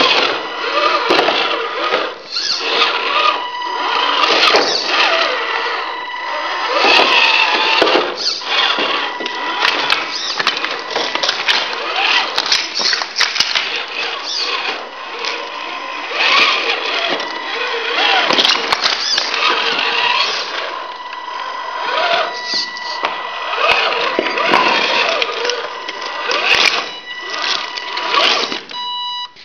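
Radio-controlled Tamiya F350 High-Lift truck crawling over broken brick and rubble. Its electric motor and gearbox whine with a thin steady high tone that comes and goes, over constant crunching and clattering of tyres and stones.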